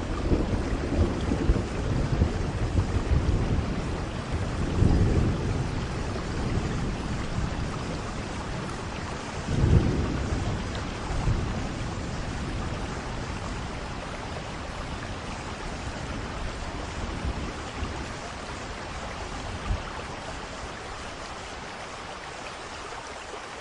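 Steady rain with rolling thunder: low rumbles swell at the start, again about five seconds in and most strongly around ten seconds in, then die away, leaving the rain alone near the end.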